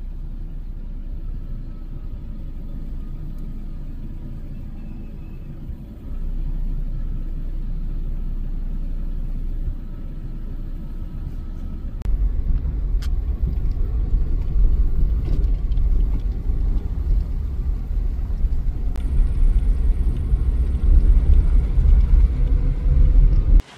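Wind buffeting the microphone: a low, gusting rumble that steps up twice and grows more uneven in its second half.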